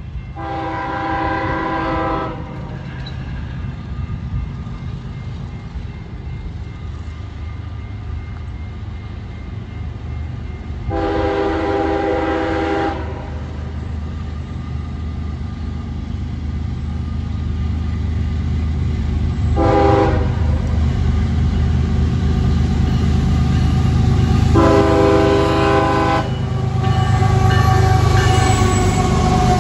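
A CSX GE ES44AC diesel freight locomotive's air horn sounding the grade-crossing signal: two long blasts, a short one and a final long one, as the train approaches. Under the horn the engine and wheels rumble, growing steadily louder until the locomotive passes near the end.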